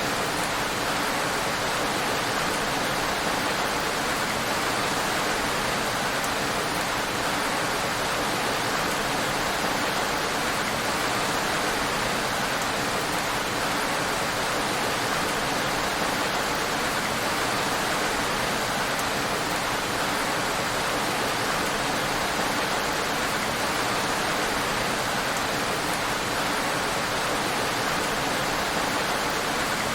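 Heavy rain falling steadily: an even, unbroken hiss with no separate drops or pauses standing out.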